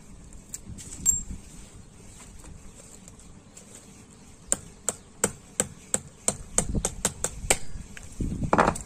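Sharp taps of metal against the glass neck of a CRT around its electron gun assembly as it is being broken open: a string of about a dozen clicks, about three a second, starting midway, then a louder, rougher clatter near the end.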